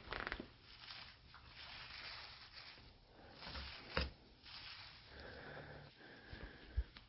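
Rustling and scraping of burnt paper debris and small picture frames being handled on a wooden cabinet, with a sharp knock about four seconds in and another near the end.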